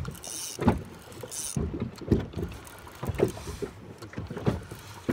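A small boat rocking on the water: irregular knocks and thuds against the hull, about one a second, with light wind on the microphone.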